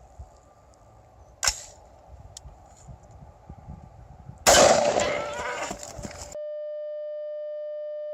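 A single AR-15 rifle shot with a sharp crack about a second and a half in. About three seconds later comes a much louder, longer blast that dies away over a second or so. Then everything cuts off suddenly to a steady electronic beep tone.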